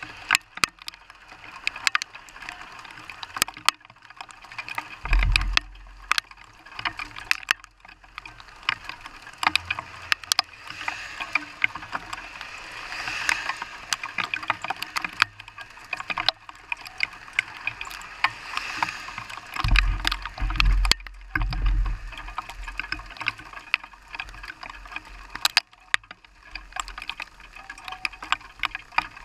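Rain, sleet and hail striking a car's windshield and body: a steady wash with many irregular sharp ticks of pellets hitting the glass. Low rumbles come about five seconds in and again around twenty seconds in.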